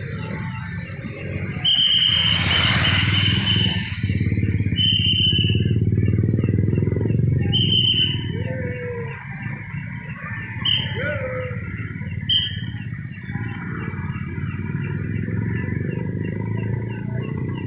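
A traffic whistle blown in five steady blasts, the first about two seconds long and the rest shorter, over the continuous noise of passing vehicles.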